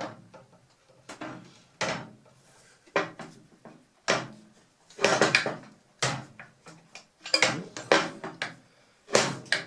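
Irregular metal clunks and knocks, about ten of them, some with a short sliding scrape, from a contractor table saw's rip fence being adjusted and shifted on its rail.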